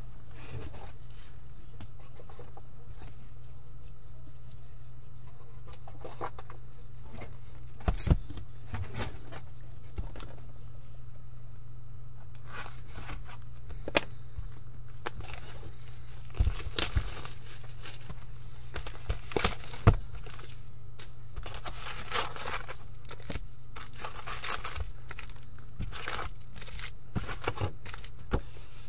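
An Upper Deck hockey card hobby box being unwrapped and opened by hand: scattered crinkling and tearing of its wrapping, with light knocks as the box and packs are handled, sparse at first and busier through the second half. A steady low hum runs underneath.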